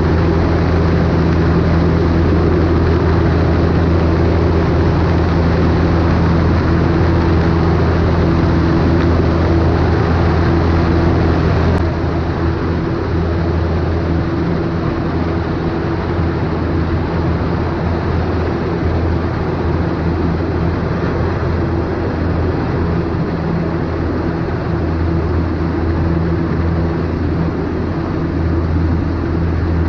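Cessna 152's four-cylinder Lycoming engine and propeller droning steadily in flight, with wind rushing over the wing-mounted camera. The sound drops a little in level about twelve seconds in.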